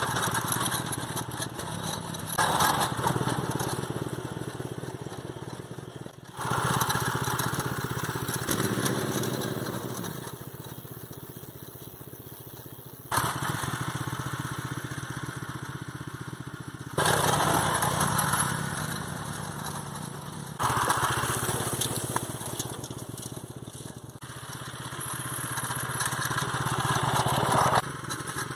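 Walk-behind tractor engine running steadily. The sound jumps abruptly in level every few seconds, as if separate recordings were spliced together, and fades gradually between the jumps.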